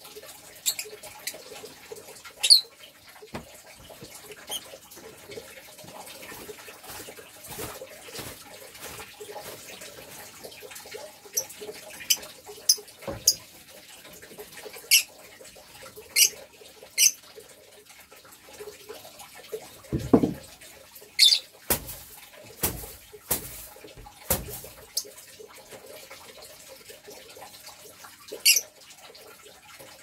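Caged lovebirds giving short, sharp, high-pitched chirps scattered at irregular intervals, with a cluster of dull knocks about twenty to twenty-five seconds in.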